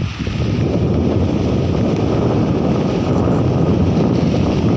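Wind buffeting the phone's microphone in a loud, steady rumble.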